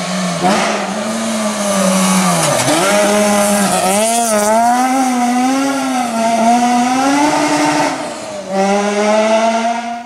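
Rally car engine at full throttle on a gravel stage, revs held high but wavering as the throttle is worked, with a sharp dip about two and a half seconds in and a brief drop near the end, over a hiss of gravel thrown up by the tyres.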